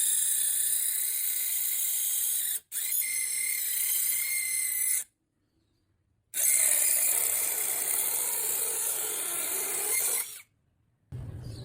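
A power tool running on wood: a steady high whine and hiss, cut off abruptly three times and resuming each time.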